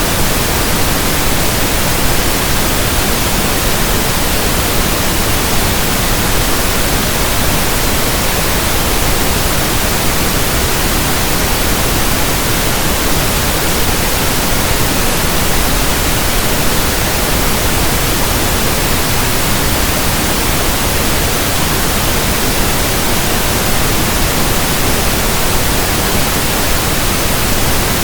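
Steady synthetic pink noise: an even, unchanging hiss that spans deep to high pitches.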